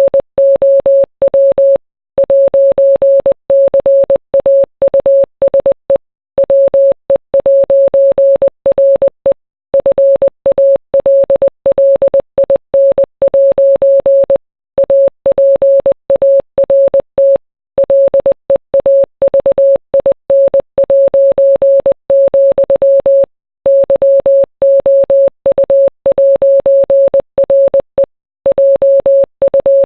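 Morse code: a single steady beep keyed on and off in short dots and longer dashes, with longer pauses between groups of characters.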